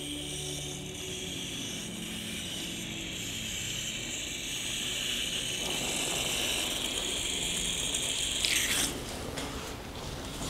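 Running water hissing and splashing steadily as it is poured over a body being washed. The flow gets heavier about halfway through, with a brief louder rush near the end.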